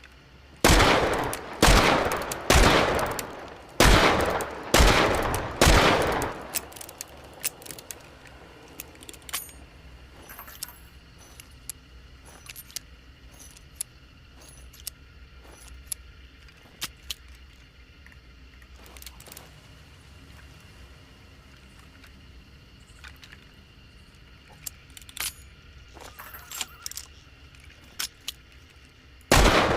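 Smith & Wesson Schofield Model 3 revolver fired six times in about five seconds, each shot with an echoing tail. Then follow some twenty seconds of small metallic clicks and rattles as the emptied break-top revolver is reloaded, and another shot near the end.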